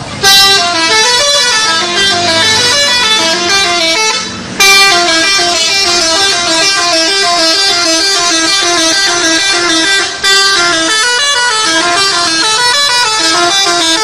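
Bus 'telolet' horn, a set of multi-tone air horns, playing a fast tune of short stepped notes, with two brief breaks about four and a half and ten seconds in.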